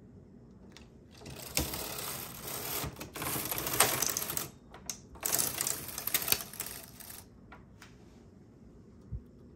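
Carriage of a Singer 328 Memo-Matic knitting machine pushed across the needle bed to knit one row: a rattling, sliding clatter for about six seconds, with a short break about halfway. A small knock near the end.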